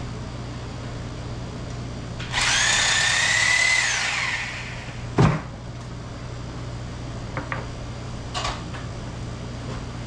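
A small electric motor whirs for about two seconds, its whine rising slightly and then dropping as it spins down. About a second later comes one heavy thump, the loudest sound here, and then a few light knocks.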